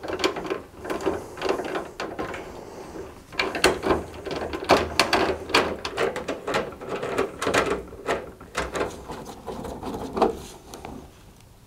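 Hand screwdriver driving screws into a tumble dryer's sheet-metal back panel: a run of irregular clicks, taps and metal scrapes as the screws are turned and the tool shifts from hole to hole.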